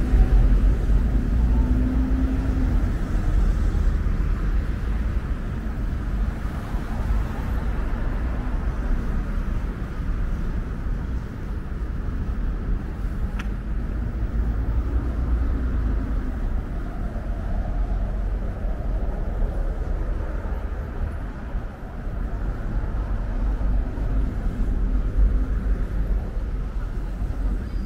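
Steady city street traffic: a continuous low rumble of passing road vehicles, with one sharp click about halfway through.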